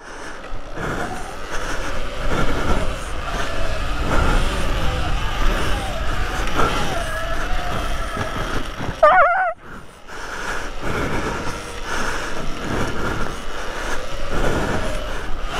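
Electric off-road motorbike being ridden hard: the motor's whine rises and falls with the throttle over a steady low rumble. About nine seconds in there is a short, high, wavering tone and a brief dip in level.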